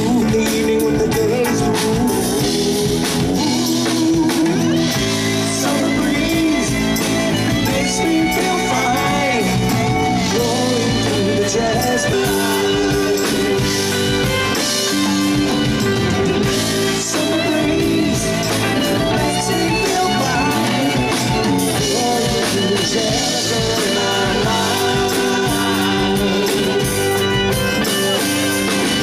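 A live rock band playing a song: electric guitars, bass guitar, drum kit and keyboard, with a male lead vocal.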